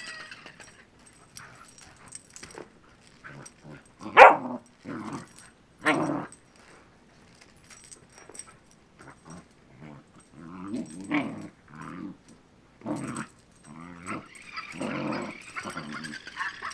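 Seven-week-old springer spaniel puppy barking and growling in play at a toy, in short separate bursts, the loudest a sharp bark about four seconds in.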